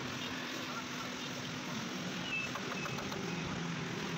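Steady motor hum with an even low tone, and a few faint light clicks about two and a half seconds in.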